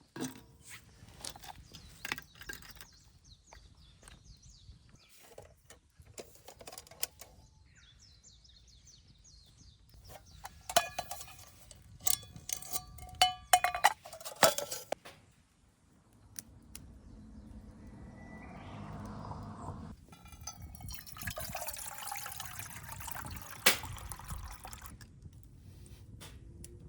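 Oysters grilling over a wood fire in a stainless-steel fire pit: scattered crackles and snaps, a run of ringing clinks of shells and metal on the grill grate about ten to fifteen seconds in, then a steady sizzling hiss through the second half.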